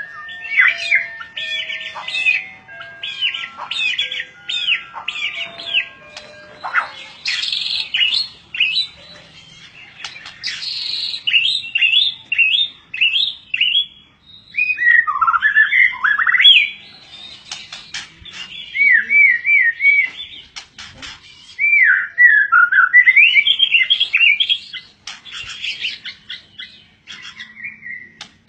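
A songbird singing a long, varied song of clear whistled notes, quick slurred up-and-down phrases and rapid trills, delivered in bursts with short pauses.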